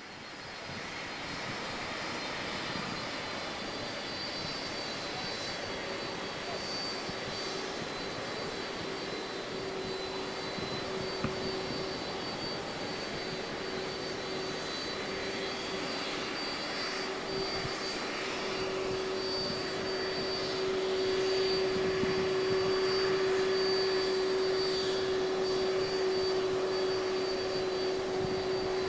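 Boeing 767 freighter's jet engines running, a steady rushing noise with a steady hum and a high whine, getting a little louder about two-thirds of the way through.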